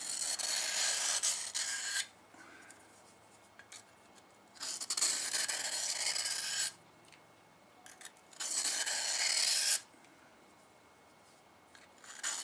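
A knife being sharpened: the blade drawn along the sharpener in three long scraping strokes, each about one and a half to two seconds, with pauses of about two seconds between them. A fourth stroke starts at the very end.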